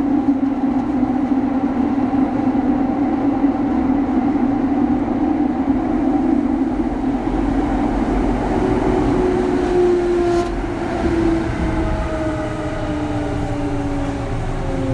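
Early Mitsubishi GTO VVVF inverter and traction motors of a Kintetsu 3200 series train, heard from inside the motor car. A loud, steady growl runs first; from about eight seconds in, several tones slide slowly down in pitch as the train slows.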